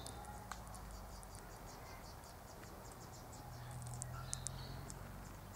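Faint high-pitched insect chirping, short chirps repeated a few times a second, over a low steady hum, with a couple of sharp clicks.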